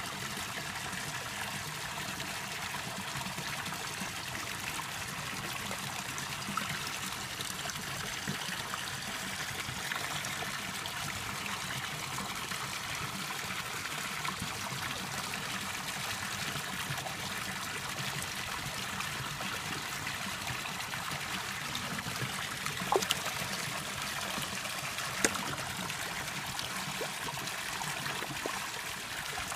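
Steady trickle of running water at a koi pond, with a few brief sharp ticks near the end.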